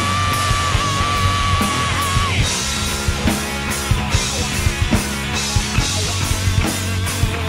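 Rock music with guitar and a steady beat; a high note is held through the first two seconds or so.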